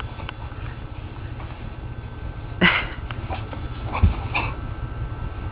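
A raccoon and a dog play-wrestling, with scuffling and a short, loud animal cry about two and a half seconds in, then a thump and a few smaller cries about a second and a half later.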